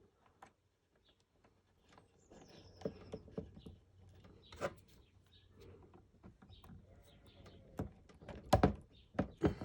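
Small clicks and rustles of electrical wires being handled and pushed into a push-in wire connector, with a few sharper clicks in the second half.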